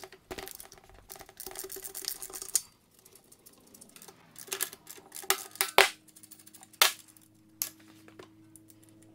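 Socket ratchet clicking in quick runs as the engine-mount nuts are turned off, then a few scattered metallic clicks and clinks.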